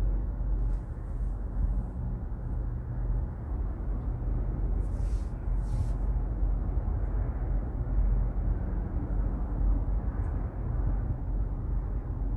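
Steady low rumble inside a moving cable car cabin, with two brief hissing rustles about halfway through.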